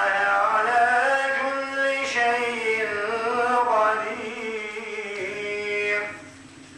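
A man's unaccompanied voice chanting mevlid verses, holding long notes that slide up and down; the phrase ends about six seconds in.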